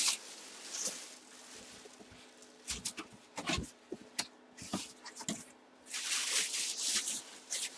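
Scattered soft rustling and a few light knocks, over a faint steady hum.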